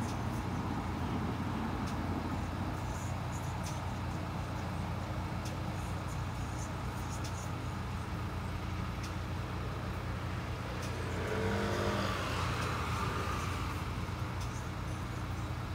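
Road traffic: a steady low rumble of engines from cars queued and moving on a road. About eleven seconds in, one vehicle's engine grows louder for a couple of seconds as it accelerates past, then fades.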